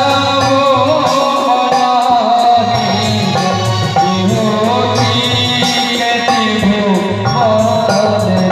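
Music: a song with a wavering melodic line, sung or played, over drums and a steady bass.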